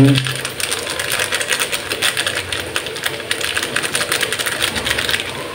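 Plastic seasoning sachet crinkling as it is squeezed and shaken to empty out the powder, a fast, steady run of small crackles.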